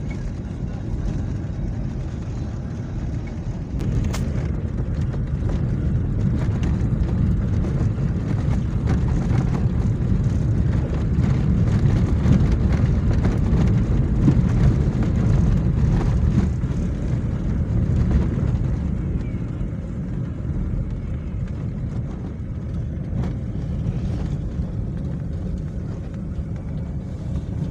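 Car driving on a dirt road, heard from inside the cabin: a steady low rumble of engine and tyres that grows a little louder in the middle, with a few faint knocks.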